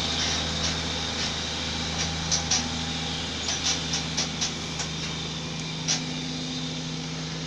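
Big rig recovery truck's diesel engine pulling steadily under heavy load while towing a large truck slowly up a steep hill, a deep even drone. A scatter of sharp clicks and knocks comes between about two and six seconds in.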